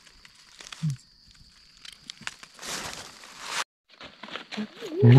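Dry fallen leaves crackling and rustling as a mushroom is cut from the leaf litter with a knife, then footsteps through dry leaves. There is a short drop to silence about three and a half seconds in.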